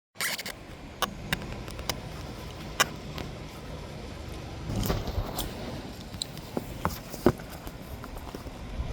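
Mack front-loader garbage truck's engine running steadily, with scattered sharp clicks and knocks.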